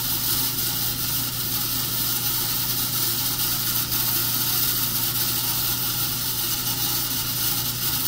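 Top-load washing machine filling: a loud, steady hiss of water rushing in through the fill lines, with a low hum beneath. It is the strange noise that the owner puts down to the water lines.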